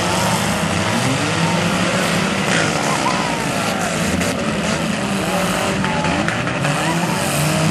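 Several four-cylinder demolition derby cars' engines revving and running hard at once, their pitches rising and falling. A few sharp knocks of the cars hitting come in the middle.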